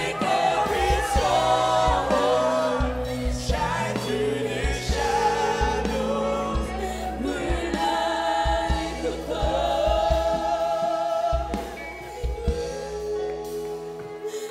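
Mixed choir of young men and women singing a gospel worship song over instrumental accompaniment; the low bass notes thin out near the end.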